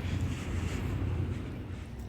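Wind buffeting the microphone, a steady low rumble with a faint hiss that fades over the first second.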